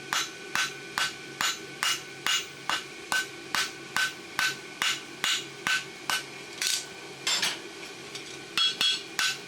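Farrier's hammer striking a hot steel horseshoe on the anvil, hitting in the same spot to raise a quarter clip: steady blows about two and a half a second, each with a short ring. There is a brief break near the end before the blows pick up again.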